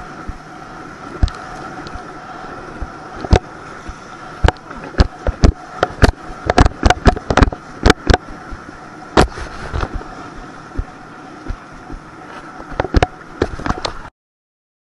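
Towed inflatable tube bouncing over wave chop: a run of sharp smacks of water and tube against the camera, thickest through the middle, over a steady rushing noise with a steady high hum. The sound cuts off abruptly near the end.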